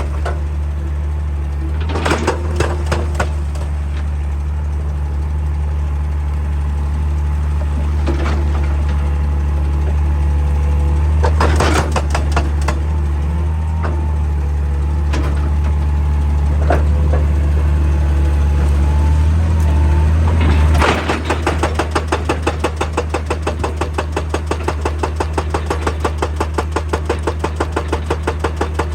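Excavator diesel engine running steadily, with a few scattered clanks of metal on rock. About two-thirds of the way in, a hydraulic rock breaker starts hammering: a rapid, even stream of blows that keeps going.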